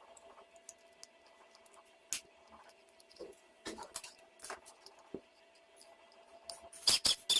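Scattered light clicks, taps and scrapes of a small DC motor's parts being handled, then near the end a few short, loud buzzing bursts.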